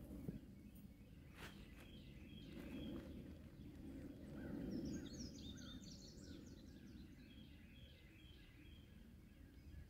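Faint outdoor ambience with a low, steady rumble and birds chirping. The chirps are densest in a quick run about halfway through. A couple of faint clicks come near the start.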